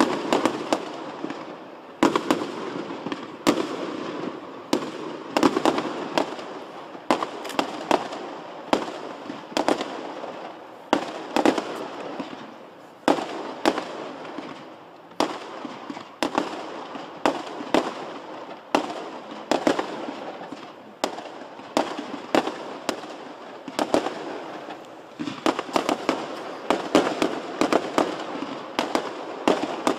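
Fireworks display: sharp bangs of shells bursting, coming irregularly about one or two a second, over a constant rushing noise between them.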